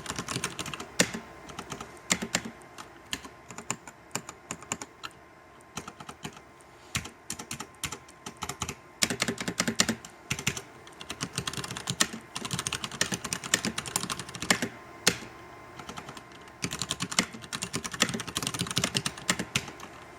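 Typing on a Hansung Gtune MKF14S XRGB mechanical keyboard with brown tactile switches and double-shot keycaps: rapid runs of key clicks and clacks with brief pauses between bursts.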